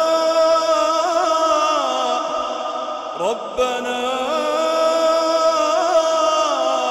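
Solo male voice reciting the Quran in a melodic tajwid style, drawing out long held notes with ornamented turns. About three seconds in the voice breaks off briefly with a quick rising slide, then takes up another long held note.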